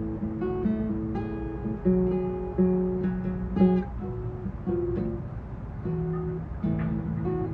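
Cutaway jumbo acoustic guitar played by hand: a slow run of picked notes and chords ringing over one another, with a sharper accent about three and a half seconds in.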